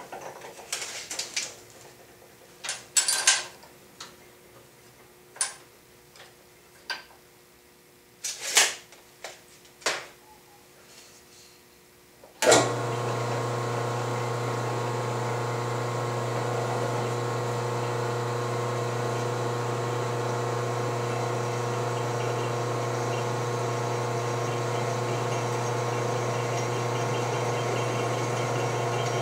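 A few sharp metal clanks and clicks as a steel pipe is set and clamped in a drill press vise. About twelve seconds in, the drill press motor switches on suddenly and runs steadily with a low hum.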